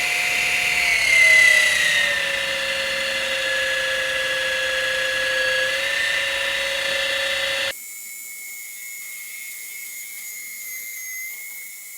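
Small electric motor of a micro metal lathe whining steadily. About a second in, its pitch falls and settles lower as the supply voltage is turned down to slow the spindle. About two-thirds of the way through the sound drops suddenly in level, leaving only a thin high whine.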